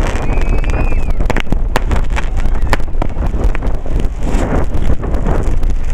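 Aerial fireworks going off: many sharp bangs and crackles, one after another, over a heavy low rumble of wind buffeting the microphone.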